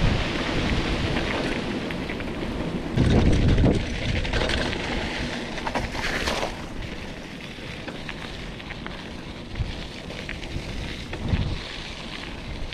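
Mountain bike tyres rolling over wet gravel under heavy wind noise on a bike-mounted action camera's microphone, with a strong gust about three seconds in. A hissing splash comes about six seconds in as the bike rolls through a puddle.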